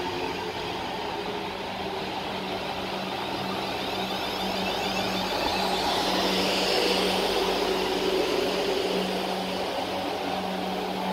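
Siemens Desiro electric multiple unit running along the platform at low speed, with a steady electrical hum and a whine that swells and peaks about two-thirds of the way through as the coupled units pass.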